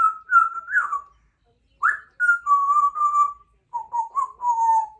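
Congo African grey parrot whistling: three short phrases of clear notes, each phrase starting higher and sliding down in pitch.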